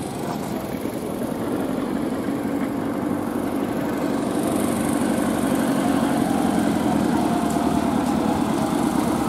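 A motor vehicle engine running steadily, getting slowly louder.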